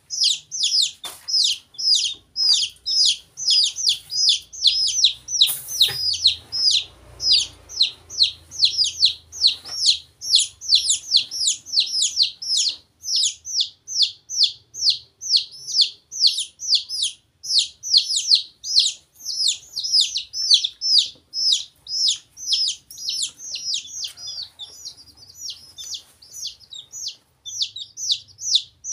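Baby chicks and a duckling peeping without a break: high, falling peeps, about three a second.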